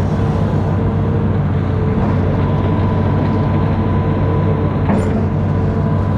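Amphibious excavator's diesel engine running steadily under a steady whine, with a brief click about five seconds in.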